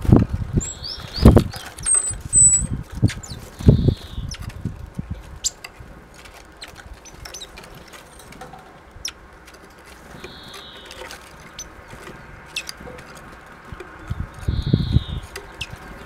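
Great tit and blue tit at a hanging peanut net feeder: short bursts of wingbeats as the birds flutter in and out at the start, around four seconds in and near the end, with a few short high call notes and light clicks of beaks pecking at the peanuts in between.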